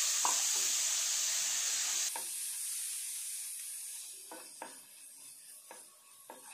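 Onion masala sizzling in a non-stick frying pan just after a splash of water is poured in, loud at first and fading away. A wooden spatula stirring the masala gives a few short scraping strokes against the pan in the second half.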